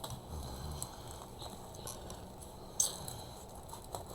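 Faint rustling and scraping of paper and cardboard as tightly packed paper pads are worked out of a shipping box, with a few small clicks and one sharp tap about three seconds in.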